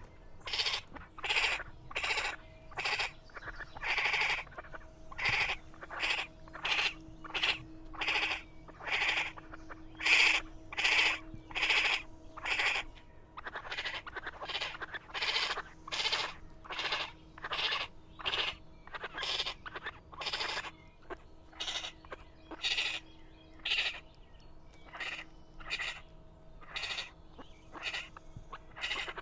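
Baby raccoons crying: short, high-pitched calls repeated evenly, about one and a half a second.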